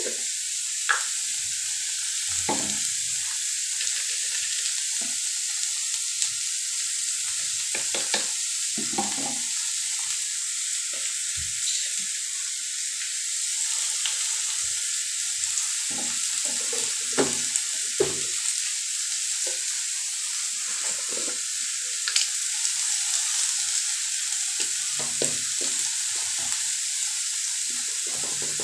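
Diced bottle gourd frying with a steady sizzle in a steel kadhai, with scattered scrapes and clinks of a metal spatula stirring against the pan.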